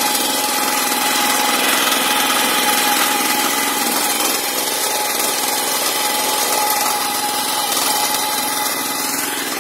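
Honda GX200 single-cylinder four-stroke petrol engine on a power weeder, running steadily while the machine pulls a ridger through the soil.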